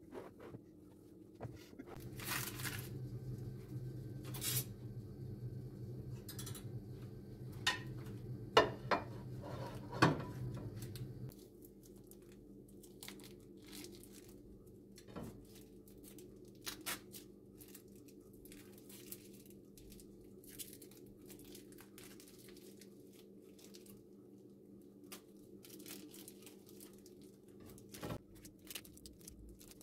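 Plastic sausage casings crinkling and tearing as they are peeled off by hand, with a small knife and sausages clicking on a ceramic plate, including a couple of sharp clicks about a third of the way in. A low hum runs underneath and stops suddenly at about the same point.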